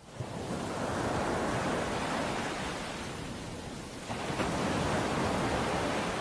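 Steady rushing noise with no distinct sounds in it, swelling and easing slightly in level.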